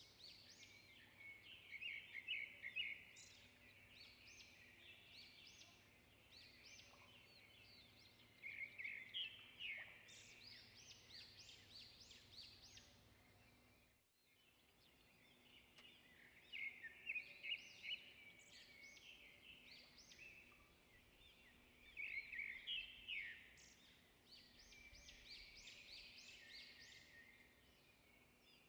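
Faint bird chirping and twittering, in quick clusters of high notes, over a low steady hum.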